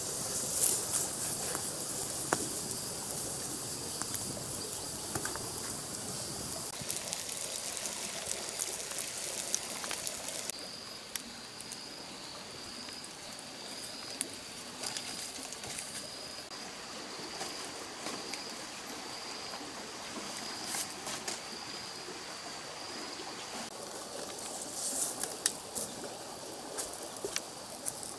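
Open wood fire burning under bamboo cooking tubes, with a steady hiss and scattered crackles and small knocks, more of them near the start and near the end. A thin, steady high-pitched tone runs under it.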